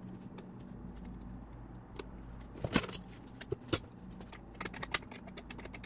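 Scattered sharp metallic clicks and clinks of hand tools and parts being handled on a gearbox, two louder taps near the middle and a quick cluster near the end, over a steady low hum.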